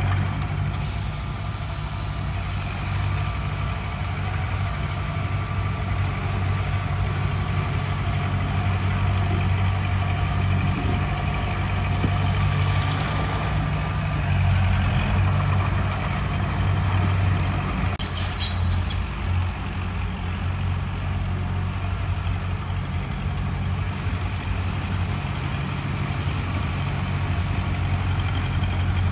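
Heavy diesel engine of earthmoving machinery running steadily with a low, even drone, with a few faint high squeaks a few seconds in.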